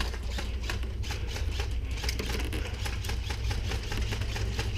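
Scattered, irregular clicks of airsoft guns firing and BBs striking during a firefight, several a second, over a steady low rumble.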